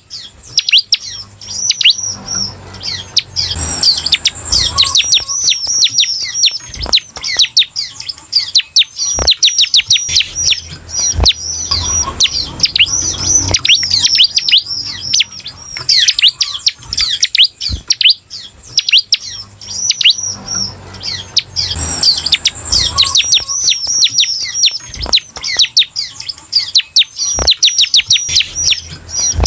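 Ciblek (bar-winged prinia) singing a fast, nearly continuous chatter of high, downward-slurred chirps, with a few soft knocks in between.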